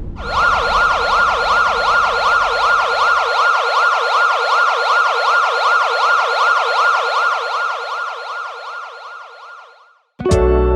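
Siren wailing rapidly up and down, about four sweeps a second, fading away near the end. Plucked guitar music starts just before the end.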